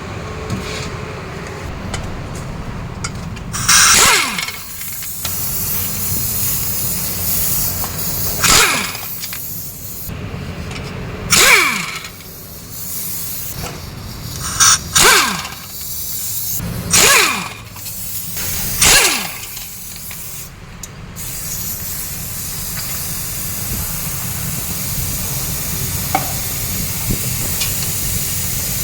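Air impact wrench run in about six short bursts, each ending in a falling tone as the tool spins down, undoing the clutch pressure plate bolts. A steady hiss fills the last part.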